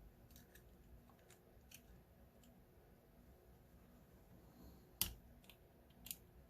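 Quiet, scattered small metal clicks and taps, with a sharper click about five seconds in: a gut wrench being worked against an ACE solid steel padlock, trying to hook and push out the lock's retainer to disassemble it.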